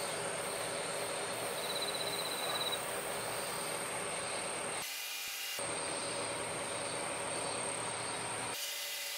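Steady outdoor ambient noise: an even hiss with a thin continuous high tone, and a short rapid trill about two seconds in. The hiss dips briefly at joins between shots, about five seconds in and near the end.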